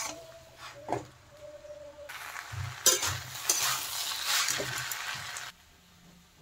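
A steel spatula stirring and scraping the cooked water spinach and vegetables in a metal pan and lifting them out, with sharp knocks against the metal and a sizzling hiss. The sound stops suddenly about five and a half seconds in.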